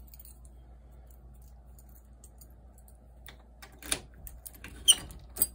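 A few sharp clicks and taps, the loudest about five seconds in, over a faint low hum.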